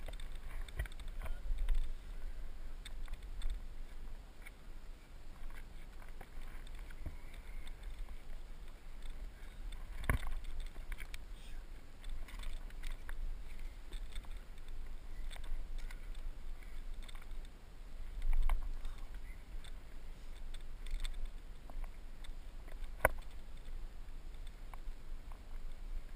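Faint scuffs, knocks and clicks of hikers climbing a rocky trail, over a low wind rumble on the microphone; two sharper clicks stand out, about ten seconds in and near the end.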